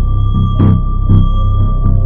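Background music with a regular low beat, about two beats a second, under sustained tones.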